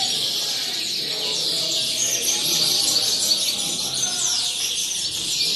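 Several caged European greenfinches singing at once: a dense, continuous twittering of overlapping quick trills and chirps.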